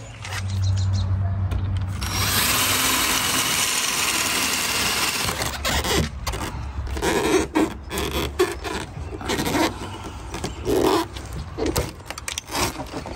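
Cordless drill drilling out a pop rivet that holds a Miata soft top's rain rail to the frame: a low spin-up, then a few seconds of steady grinding as the bit cuts through the rivet. Irregular knocks and clatter follow.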